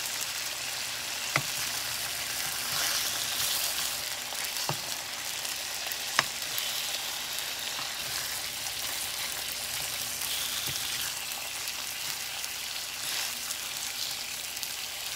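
Bologna slices sizzling in canola oil in a skillet, a steady frying hiss, with three sharp clicks in the first half.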